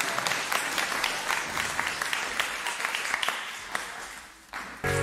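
Audience applauding, many hands clapping, dying away about four seconds in. Music with chimes starts just before the end.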